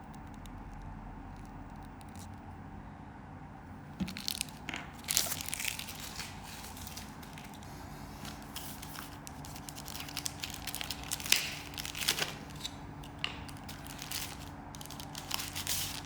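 Packaging being handled and opened: irregular crinkling, rustling and crackling of wrapping that starts about four seconds in, with a few sharper crackles near the middle.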